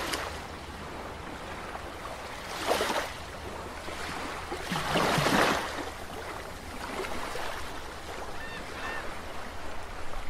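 Underwater water sound effect: a steady wash of water noise that swells twice, briefly about two and a half seconds in and more strongly around five seconds in, with a few faint short chirps near the end.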